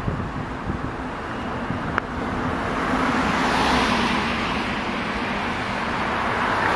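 Road traffic: a vehicle's tyre and engine noise swelling from about two seconds in and holding, over a low hum.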